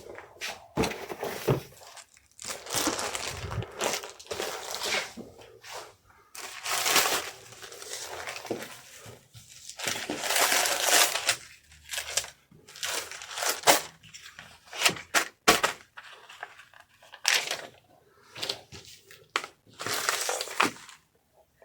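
Packing material being crumpled and rustled by hand in irregular bursts of a second or two, with scattered sharp taps and knocks as items and boxes are handled.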